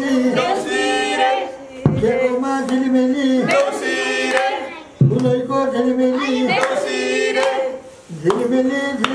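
A man singing into a microphone in short phrases with long held notes, while people clap along.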